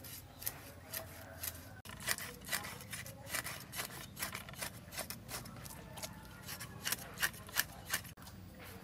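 Cleaver blade scraping scales off a whole red-tail fish on a wooden cutting board, in quick repeated rasping strokes, about two or three a second.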